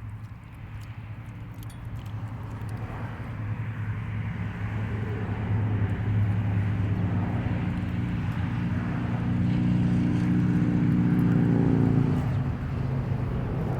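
A motor vehicle's engine running steadily, growing louder over several seconds and then easing off about twelve seconds in.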